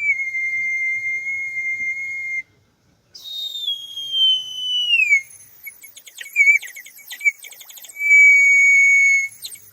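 Handmade terracotta water-bird whistle, filled with water, blown in phrases. First a steady high tone for about two and a half seconds, then a tone sliding downward, then a run of rapid warbling trills from the water inside, and another steady tone near the end.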